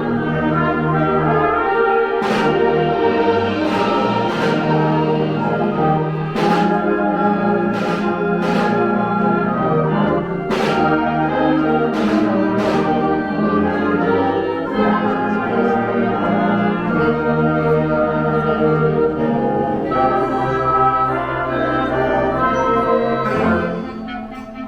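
Brass-led band music: sustained chords with repeated percussion strikes, dropping in volume near the end.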